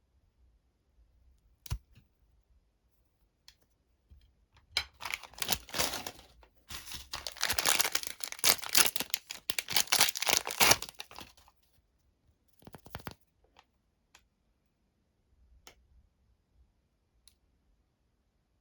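A chocolate bar's plastic wrapper torn open and crinkled in a dense run of rustling lasting about six seconds. A single click comes before it, a short crinkle follows, and a few faint ticks come after.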